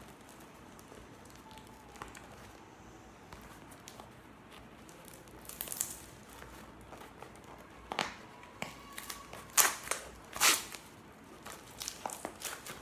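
A parcel's packaging being handled and torn open by hand: quiet rustling at first, then scattered crinkling and ripping sounds from about halfway, with two louder rips near the end.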